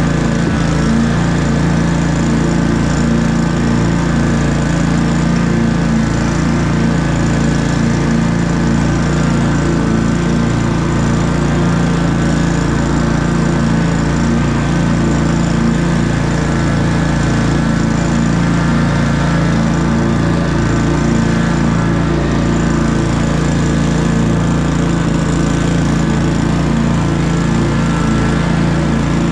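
Commercial walk-behind lawn mower's engine running at a steady, even speed while cutting grass.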